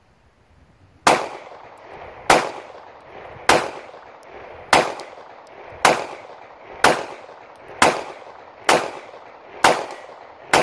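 Ten 9mm pistol shots from a Polymer80 Glock 26 subcompact build with a Rock Slide USA slide and barrel, fired one at a time about a second apart and coming a little quicker toward the end, each with an echoing tail.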